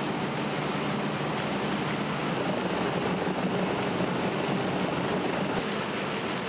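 Soil-washing plant running: a steady machinery hum under the rush of flowing slurry and water.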